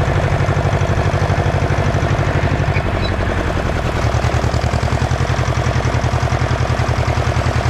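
Ursus C-335 tractor's two-cylinder diesel engine running steadily with an even, pulsing beat while pulling a disc harrow through stubble. The beat weakens for a moment about two and a half seconds in, then comes back stronger.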